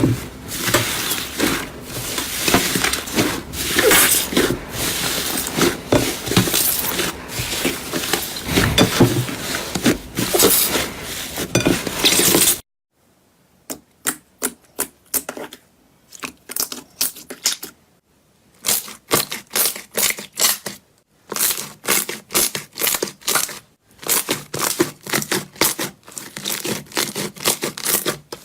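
Slime being squeezed and pressed by hand, with dense crackling and popping clicks. About twelve seconds in the sound cuts off suddenly, then comes back as shorter, quieter clusters of crackles with near silence between them.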